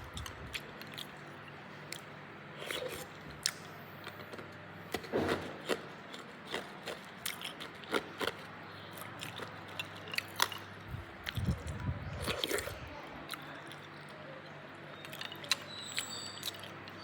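Hard ice cubes being bitten and crunched in the mouth: irregular sharp cracks and crunches, with a few duller chewing bumps between them.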